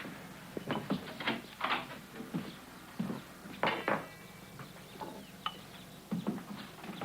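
Irregular knocks and clatters, with a brief metallic ring about three and a half seconds in.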